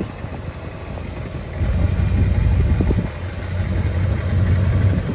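Ford F-350 pickup's engine running as the truck backs in slowly, its rumble swelling about two seconds in and again near the end.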